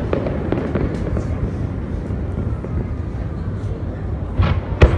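Aerial fireworks display in a lull: a steady low rumble with a few faint crackles, then sharp shell bursts start again near the end.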